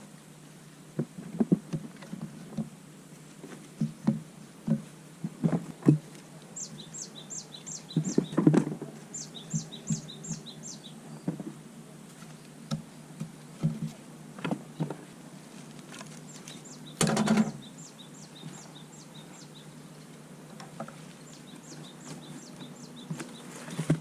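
Irregular knocks and clunks of objects being handled and set down, with one louder clatter about two-thirds of the way through. Meanwhile a bird chirps in three short runs of quick, high notes.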